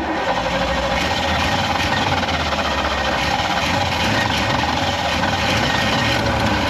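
1955 Willys Jeep's engine running steadily at idle.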